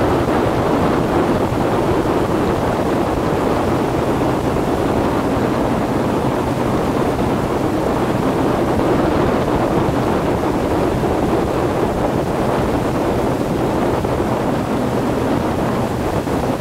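Boat running at speed, a steady engine hum under rushing, spraying water and wind buffeting the microphone.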